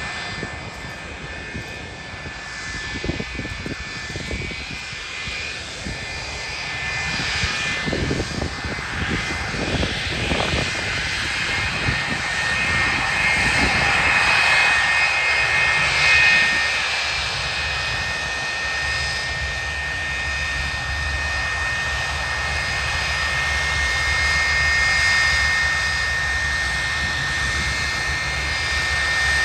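Boeing 727's three Pratt & Whitney JT8D turbofan engines at taxi power as the jet taxis: a steady high whine over a low rumble. It grows loudest about halfway through as the aircraft turns toward the listener.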